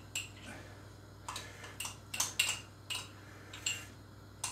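Metal teaspoon scraping and clinking against the inside of a glass jar of solid goose fat, with the scooped fat dropped onto a metal roasting tray: about six short clicks and scrapes spread over a few seconds.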